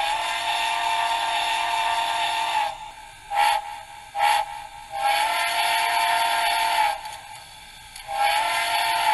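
Soundtraxx Tsunami2 'Big Steam' sound decoder playing a steamboat-style multi-chime steam whistle through the small iPhone 4 speaker in an HO-scale Big Boy model: a long blast, two short toots, another long blast, and a further blast starting near the end. Several steady notes sound together over a hiss.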